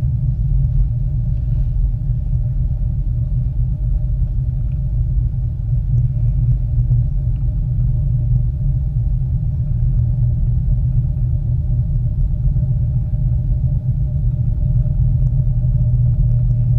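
Miyajima Ropeway car in motion: a steady low rumble with a faint steady hum above it.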